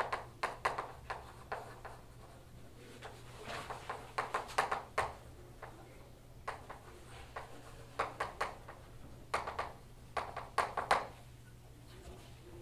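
Chalk writing on a blackboard: quick runs of taps and short scratches as letters are formed, in bursts with brief pauses between words, over a steady low hum.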